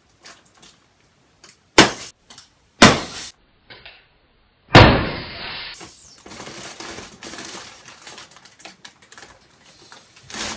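Foil star balloon crinkling and crackling as it is handled and its neck is picked open, with three loud sharp crackles about two, three and five seconds in.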